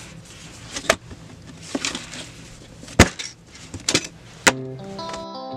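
A run of sharp cracks and knocks over a noisy hiss, the loudest about three seconds in. Plucked guitar music starts near the end.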